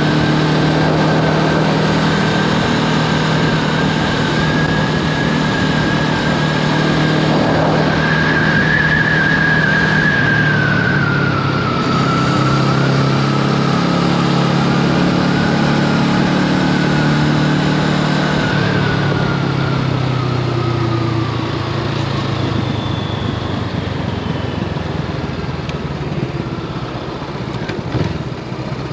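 Honda Rebel 500's parallel-twin engine running under way, with wind and road noise; the engine note shifts a few times and eases off about two-thirds through.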